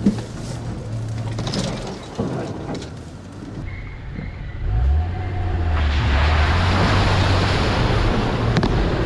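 Audi A6 C5 2.8 Quattro's V6 engine pulling the car through deep muddy water, with water and mud splashing. From about halfway the engine settles into a steady drone under a loud rush of water spraying against the car.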